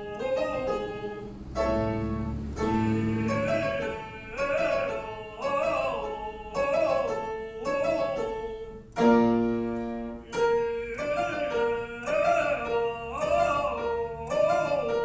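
Classical lyric voice singing a vocal exercise for covering the tone in the high register: short rising-and-falling figures repeated about once a second over piano accompaniment. Piano chords are struck about one and a half seconds in, again about a second later, and loudest about nine seconds in.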